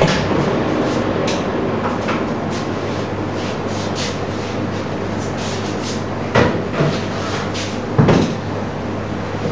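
Steady machine hum with faint ticking about twice a second above it, and two knocks near the end.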